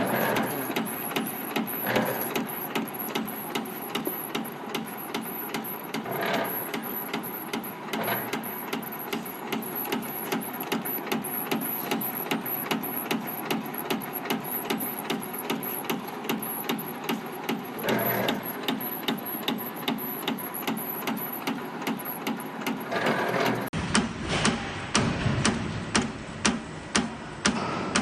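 High-speed CNC spring coiling machine running: a steady rapid rattle of mechanical clicks with a few louder clattering bursts. Near the end it changes to louder, sharper clicks about twice a second.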